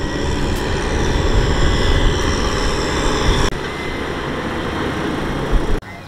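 Farm tractor's diesel engine running steadily as it tows a loaded trailer past close by. The engine noise eases somewhat about three and a half seconds in and drops off abruptly just before the end.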